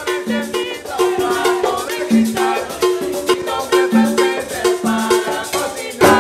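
Upbeat salsa-style song: a woman singing over the scrape of a metal güira and a hand drum, with a steady beat. It ends on one sharp loud hit about six seconds in.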